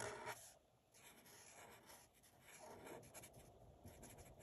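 Faint scratching of a Sharpie felt-tip marker on paper, in short strokes as it inks in small areas, with a brief soft sound at the very start.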